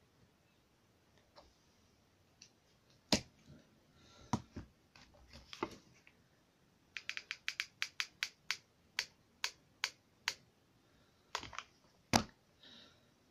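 Sharp clicks from a hot glue gun's trigger being squeezed, most likely, while glue is fed onto a card model. A few single clicks come first, then a quick run of about a dozen in the middle, then two louder ones near the end.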